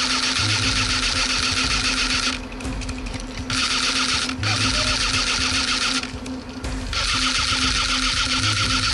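Electric airsoft rifle (an RK74 CQB AK-style AEG) firing full-auto in several long bursts of one to three seconds with short pauses between, the gearbox cycling in a fast, even rattle. Its battery is running low.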